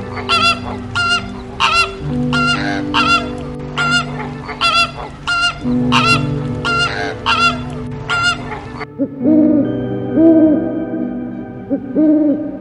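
Flamingos honking: short, high, goose-like calls repeated about twice a second. About nine seconds in these stop, and lower owl hoots, rising and falling, take over. A steady music drone runs underneath.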